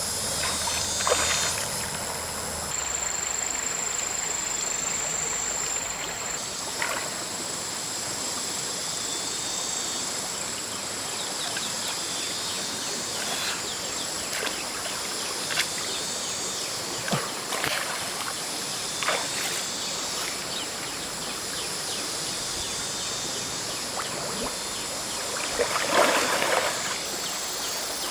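Mountain stream water running steadily, with a few brief sharp sounds over it; the largest comes near the end.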